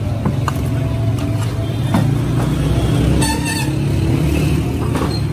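Street traffic: a steady engine rumble from passing cars and motorcycles, with a short high tone a little past three seconds in.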